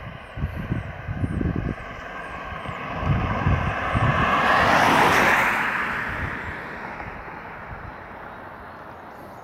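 A Hyundai Creta SUV driving past on a wet road, its tyres hissing on the water. The sound swells to its loudest about five seconds in, then slowly fades. Wind gusts rumble on the microphone in the first couple of seconds.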